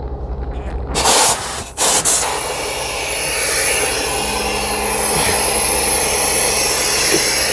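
Compressed air bursts twice and then hisses steadily out of the tractor's red emergency (supply) air line, just uncoupled from the trailer at the glad hands. This is the truck's air system venting and its brake air pressure dropping during the air brake test.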